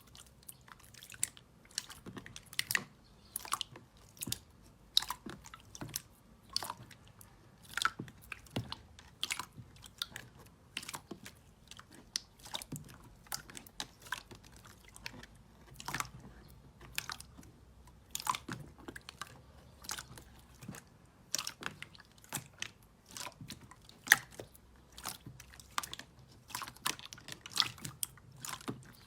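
Slime being pressed and worked by hand, giving an irregular run of sharp crackling clicks and pops, several a second.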